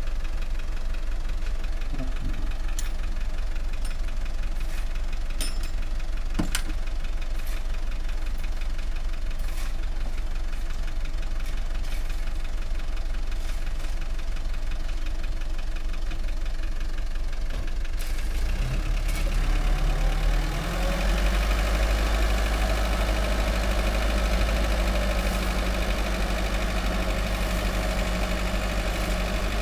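Light diesel dump truck engine running with a steady clatter, then revving up a little past halfway and holding at higher revs while the hydraulic hoist tips the loaded bed to dump soil. A few light clicks and knocks in the first few seconds.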